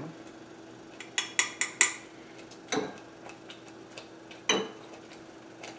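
Metal spoon tapping and scraping against a stainless steel saucepan of barbecue sauce: a quick run of about five sharp clicks just after a second in, then two single knocks, over a faint steady hum.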